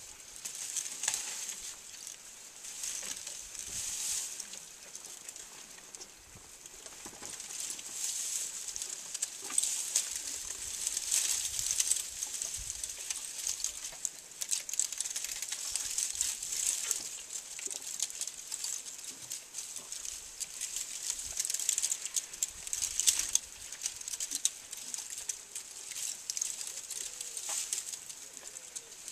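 African bush elephants browsing a thorny bush close by: twigs crackling and snapping and branches rustling as they are stripped and chewed, in irregular bursts with many short sharp snaps.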